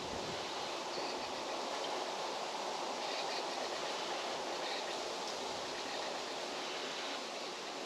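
Steady rushing outdoor noise with a few faint, brief high chirps over it.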